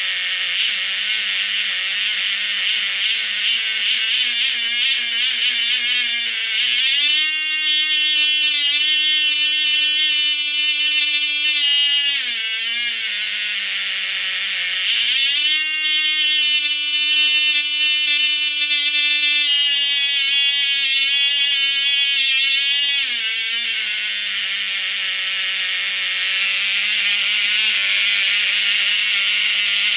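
Cox Medallion .051 two-stroke glow engine with an RC throttle carburettor, running with a painfully high-pitched whine. The throttle is opened twice, about a quarter of the way in for some five seconds and again for about eight seconds. Each time the pitch rises to a higher steady note, then falls back to the lower speed.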